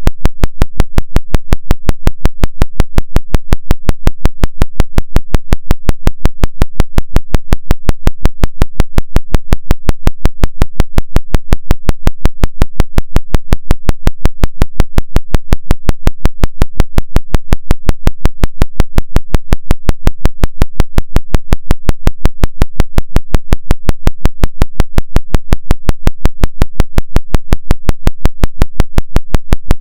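Isochronic tone: a low electronic tone pulsed on and off at an even rate of about five and a half times a second, the 5.5 Hz theta-range beat used for brainwave entrainment.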